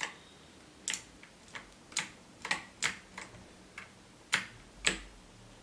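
Pictek mechanical keyboard with clicky blue switches: about nine single key presses at uneven intervals, each a sharp click.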